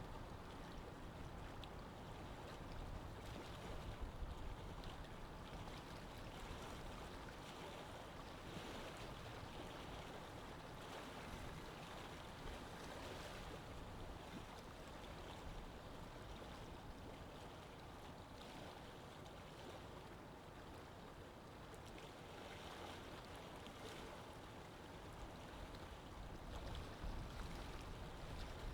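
A steady, even rushing noise like running water, with no speech or music.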